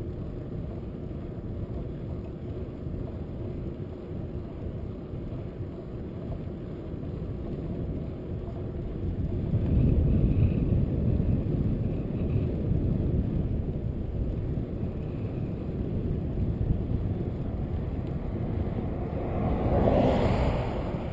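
Wind buffeting the microphone of a camera mounted on a moving bicycle: a steady low rumble that grows louder about nine seconds in, with a brief louder rush near the end.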